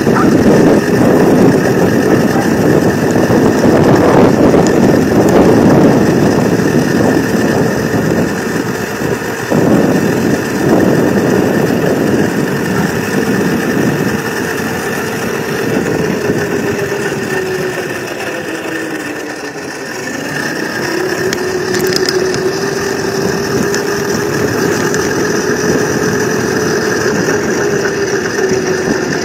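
Razor electric scooter riding on asphalt: a steady motor whine over loud rushing wind and road noise. About two-thirds of the way through, the whine sinks in pitch and then climbs again as the scooter slows and picks back up speed.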